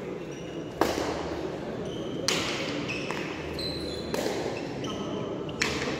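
Hard pelota (pelota dura) ball cracking as it is struck and hits the frontón wall in a rally: four sharp, echoing impacts about a second and a half apart. The crowd murmurs underneath.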